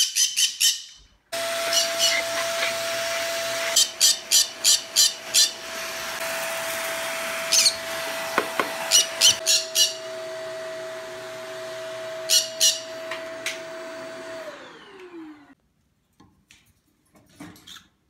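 Upright vacuum cleaner switched on about a second in and running steadily, then switched off near the end, its pitch falling as the motor winds down. Caged pet birds squawk shrilly over it again and again.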